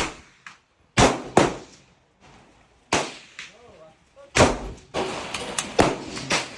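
Gunshots at a firing range: about eight sharp reports at uneven spacing, several close together near the end, each trailing off in a short echo.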